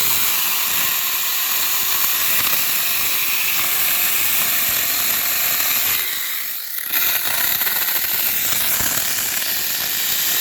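6-inch cordless electric mini chainsaw running and cutting into a privet trunk, a steady hissing buzz that eases briefly about six seconds in and then picks up again.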